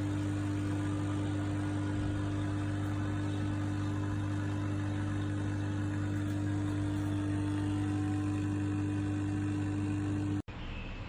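Nespresso Essenza Mini coffee machine's pump running with a loud, steady hum while brewing, cutting off abruptly near the end.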